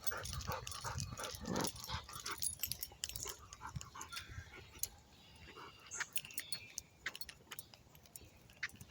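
Large, old, overweight dog panting, tired out from walking.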